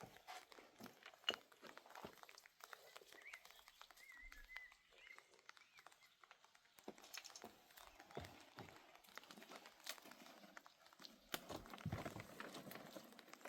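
Faint rustling and crackling with many small scattered clicks and knocks, like things being handled, growing busier near the end; a short warbling chirp is heard about four seconds in.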